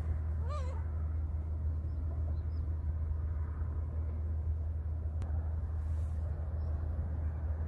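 Steady low rumble, with one short mewing gull call about half a second in and a single faint click a little after five seconds.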